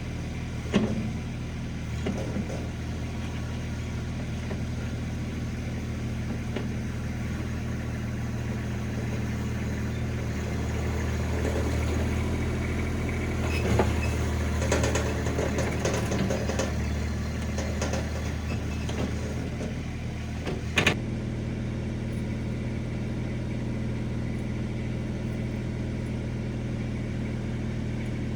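RIPPA RS06 mini skid steer's engine running steadily. Partway through it gets louder and busier, with rattling and scraping, and there are sharp metallic clanks about a second in and again about three-quarters of the way through.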